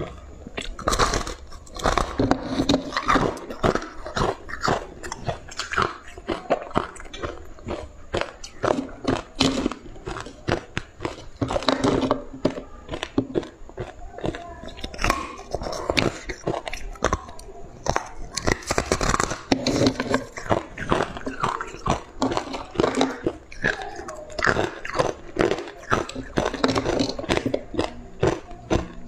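Close-up crunching and chewing of frozen purple-coloured ice as chunks are bitten off, many crisp crunches in quick succession.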